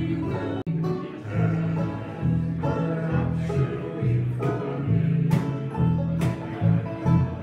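Bluegrass band playing and singing in harmony, several voices over banjo, acoustic guitar, upright bass and fiddle.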